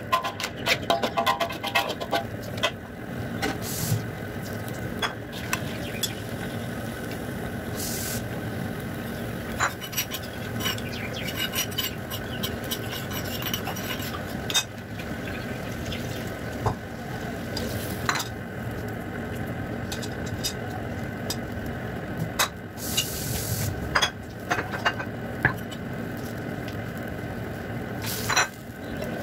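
Metal spatula scraping and clinking against a wok as chicken and spice paste are stirred, in irregular strokes over a steady sizzle.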